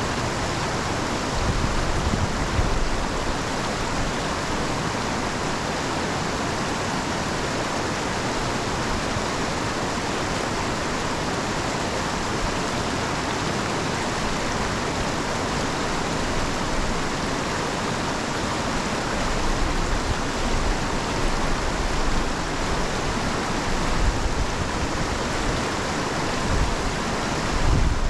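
Steady rushing water from storm runoff and rain, an even noise that holds without a break. There are a few low bumps about two seconds in and again near the end.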